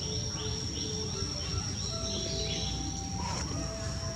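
Forest ambience: a steady high-pitched insect drone, with a bird repeating a short call about two or three times a second in the first half, over a constant low rumble.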